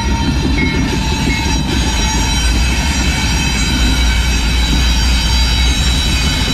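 Diesel locomotive running close by: a loud, steady low engine rumble with a thin, steady high whine over it.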